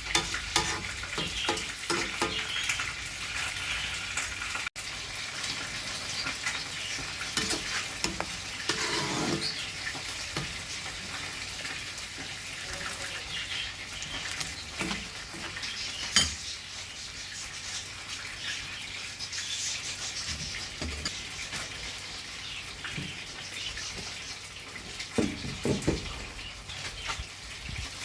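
Food frying and sizzling in a pan, a steady hiss with scattered sharp clicks and knocks, the sharpest about sixteen seconds in.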